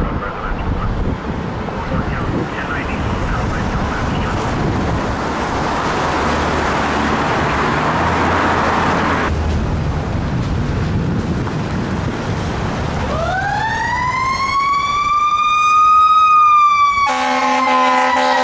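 Road noise of passing vehicles builds over the first half and stops abruptly. Then a fire engine's siren winds up over about three seconds and slowly falls, and near the end an air horn sounds over it as the 2015 Spartan Gladiator engine approaches.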